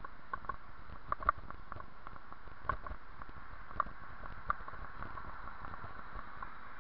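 Bicycle rolling along a paved path: a steady rushing noise with about five sharp clicks and rattles as the bike goes over small bumps.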